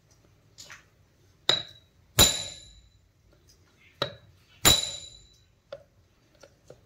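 Hammer blows on a steel drift driving a ball bearing in a combine cutter motor's steel housing: four sharp, ringing metal strikes in two pairs, with a few lighter taps between.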